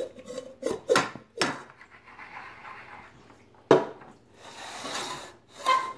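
About five sharp knocks on a wooden tabletop, the loudest about two thirds through, with soft rubbing between them, as a plastic cup and slime are handled on the table.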